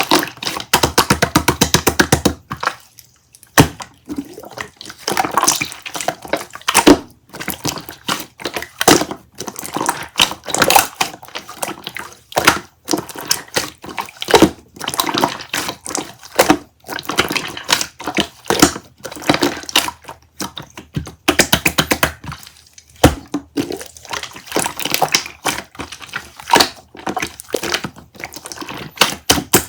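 Hands preparing flower tea: crackling, tapping and clinking. It opens with a fast run of crackling clicks, and irregular taps and rustles follow.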